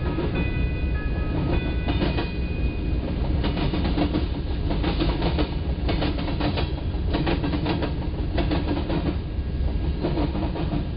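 Freight train rolling past a crossing: a steady low rumble of wagons, with the clatter of wheels over rail joints coming thickest in the middle. A few steady tones sound over it for the first few seconds.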